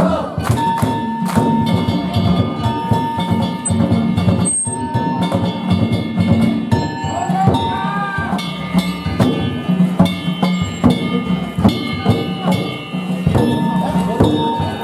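Danjiri float festival music: rapid, continuous strikes on metal hand gongs over a drum, with ringing metallic tones.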